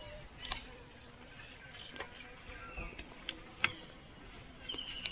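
Insects chirring steadily at a high, even pitch, with a few faint clicks.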